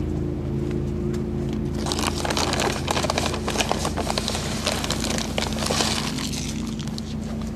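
A burst of dense crackling and crunching close to the microphone, lasting about four seconds, over a steady low engine hum.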